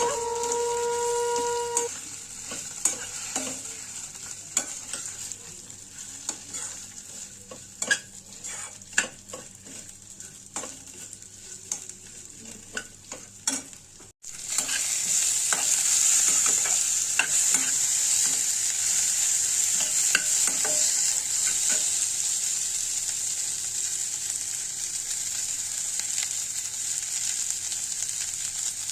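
Food sizzling in a frying pan while a spatula stirs it, clicking and scraping against the pan. After a sudden break about halfway, the sizzling is louder and steadier. A held pitched tone sounds for the first two seconds.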